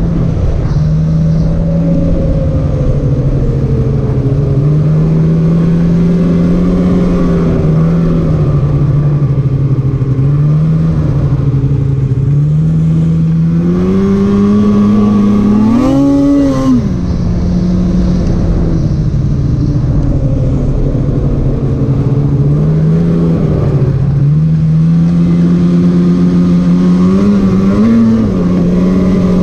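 Polaris Patriot 850 two-stroke twin snowmobile engine running under way, its pitch rising and falling with the throttle. It revs up sharply to a peak about halfway through and briefly again near the end.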